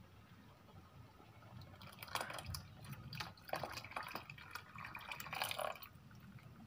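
Coconut milk poured from a plastic jug into a metal pot of rice porridge, splashing and gurgling irregularly for about four seconds, starting about two seconds in.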